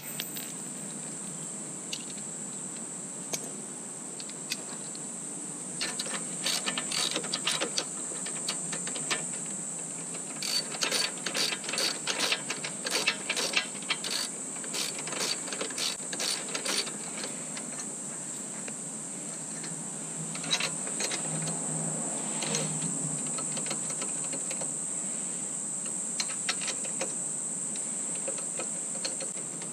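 Ratcheting spanner clicking in several quick runs a few seconds apart, with pauses between, as bolts on a motorcycle bash plate are worked in.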